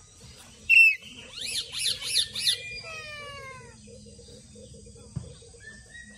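Parakeets calling: a single sharp call a little under a second in, then a quick run of four high, rising screeches, followed by a long falling call.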